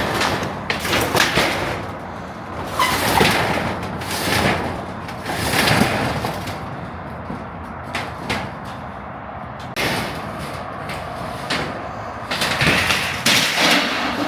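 Paneling sheets being pulled off a shade structure and handled during demolition: a series of irregular scraping and clattering bursts, a second or two apart.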